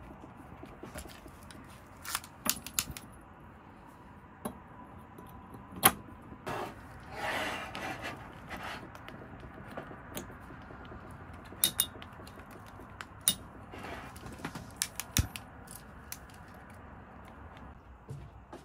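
Small gas candle lanterns being handled and lit: sharp clicks and light clinks of glass chimneys and metal fittings, a dozen or so scattered through, the loudest about six seconds in. A short hiss comes about seven seconds in.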